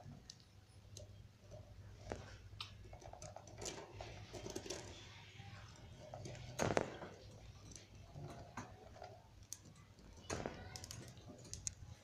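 Budgerigars nibbling and tugging at fresh seeding grass: soft, irregular beak clicks and grass rustling, with a louder rustle about six and a half seconds in and another near ten seconds.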